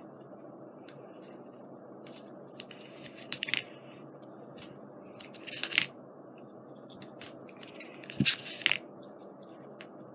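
Scattered light clicks and crinkles of paper and craft supplies being handled on a work table, a few at a time with pauses between, over a steady low hum.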